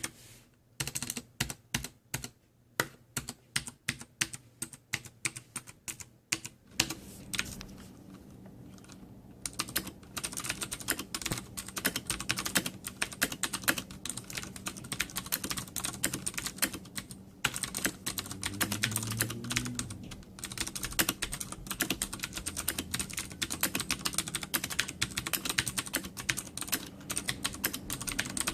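Ducky Zero mechanical keyboard with clicky Cherry MX Blue switches: scattered single keystrokes for the first several seconds, then steady fast typing for the rest.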